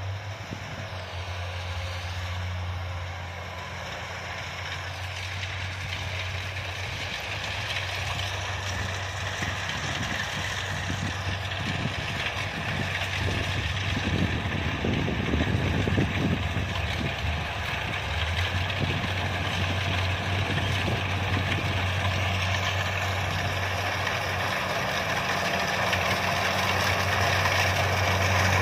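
Kubota DC-70 combine harvester running, its diesel engine humming steadily under the clatter of the cutting and threshing machinery, growing gradually louder toward the end.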